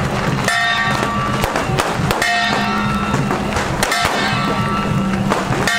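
Music: a ringing, bell-like stroke about every second and a half to two seconds over a steady low drone.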